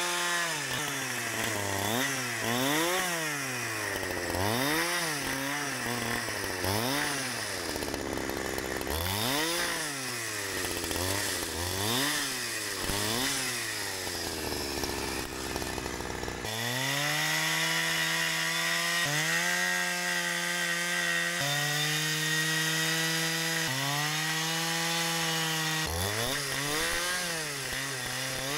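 Holzfforma G372XP two-stroke chainsaw with a 28-inch bar and crosscut chain, ripping a log lengthwise into thin boards. For the first half its pitch swings up and down about once a second. Then it runs steadily at high revs, dipping briefly every two or three seconds.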